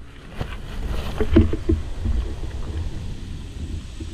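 Wind rumbling on the microphone of a rifle-mounted camera, with a few light knocks and rattles from the rifle being handled, mostly in the first two seconds.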